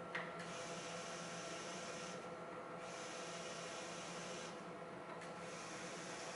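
Steady hum and hiss of the HP 7970E 9-track tape drive running with its reels turning slowly, carrying a few steady tones. A faint click comes just after the start, and the hiss dips twice.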